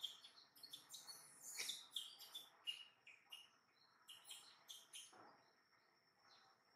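Faint birdsong: quick, repeated high chirps, busiest in the first half. A thin steady high tone joins about halfway through.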